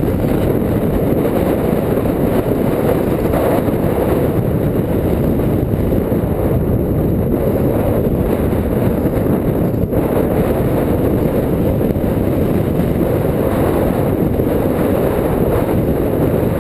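Steady, loud wind rumble buffeting the microphone.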